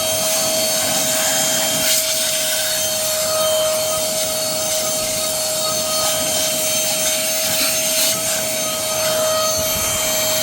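Cordless car vacuum running on a DeWalt 20V battery pack: a steady motor whine over the rush of suction air.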